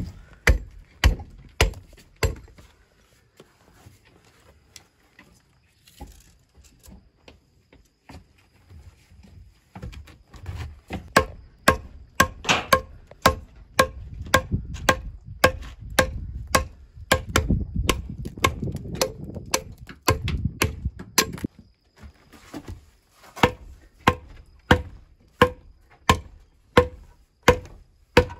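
Hand chopping strikes into an old chestnut beam being hewn into a lintel, about two blows a second, each with a slight ring. A short run of blows opens, then a pause of several seconds with only faint knocks, then steady chopping resumes about ten seconds in.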